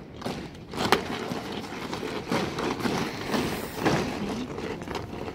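Soldiers drilling in ranks: a few sharp stamps of boots and rifle slaps, roughly one every second and a half, the loudest near the end, over steady background noise.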